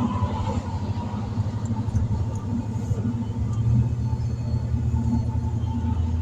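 Steady low rumble of a vehicle driving at low speed: engine and road noise heard from inside the cab.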